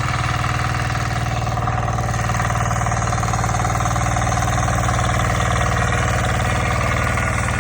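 Tractor engine running steadily at an even speed, with a regular low firing beat.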